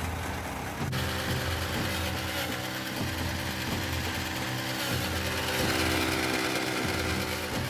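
Motor-driven chaff cutter running steadily, its pitch sagging briefly again and again as fodder is fed into the blades.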